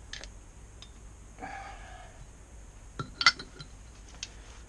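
Metal parts and tools clinking as they are handled and set down, with a few light clicks and a cluster of loud sharp clinks about three seconds in.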